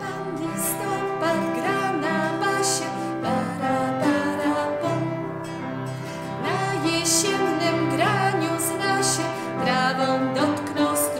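A children's song in Polish: a voice singing over instrumental accompaniment.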